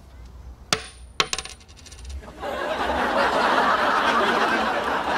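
A coin flicked into the air with a sharp ping and a high ringing tone, then landing with a clatter of small clicks. From about two and a half seconds in, a studio audience laughing.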